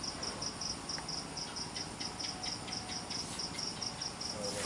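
Night insects chirping in a steady, even, high-pitched pulse, about five chirps a second, with a few faint ticks in the middle.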